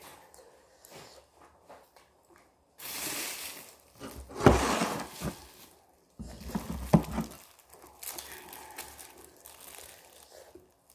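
Plastic wrapping crinkling and rustling as a plastic-wrapped rice cake is handled, in several spells of crackling, loudest about four and a half seconds in.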